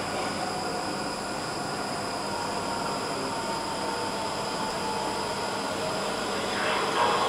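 Steady hum of a Stockholm metro train standing at an underground platform with its doors open.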